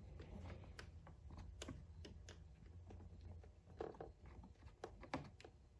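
Near silence with faint, scattered clicks and taps of a small nut being handled and threaded by hand onto the back stud of a carburetor adapter.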